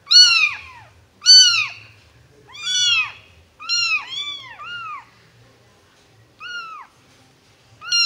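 Two orange tabby kittens meowing for attention: about ten short, high-pitched meows that rise briefly and then fall, coming in quick succession and sometimes overlapping, with a pause of about a second and a half past the middle.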